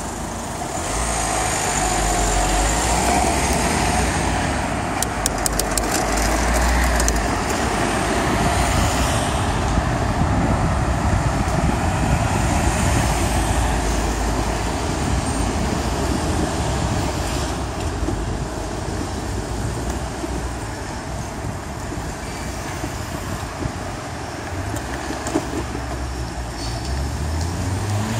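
Riding a bicycle along a city bike lane: steady street traffic and road noise, with wind buffeting the microphone. A brief run of light ticks about five seconds in.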